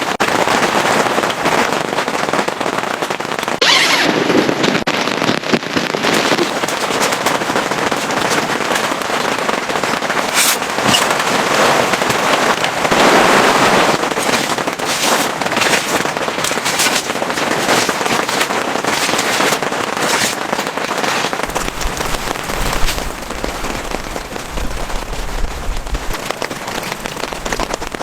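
Heavy rain falling, a steady dense patter of many drops.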